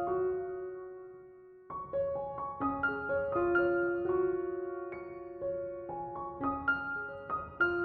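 Background piano music: a slow, gentle melody of single notes that ring and fade. A held note dies away near the start, and the phrase picks up again about two seconds in.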